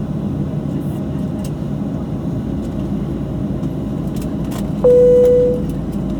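Steady cabin rumble of a Boeing 737-700 on the ground, with a few light clicks and rattles. Near the end, a single cabin chime sounds and fades, the tone used when the seatbelt sign is switched off at the gate.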